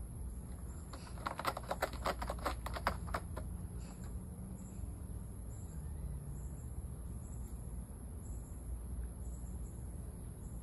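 Cat's claws scratching a corrugated cardboard scratcher: a quick run of scratches, several a second, starting about a second in and stopping after a couple of seconds.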